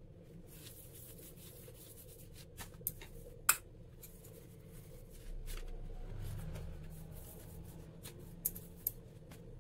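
A steel spoon spreading ghee over a stack of rice rotis on a plate: soft rubbing and scraping, with a few sharp clicks of the spoon, the loudest about three and a half seconds in. It is followed by a stretch of low rubbing as the rotis are handled, and more small clicks near the end.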